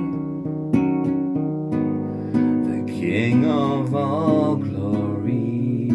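Acoustic guitar strumming chords, with a wavering melody line over it about halfway through.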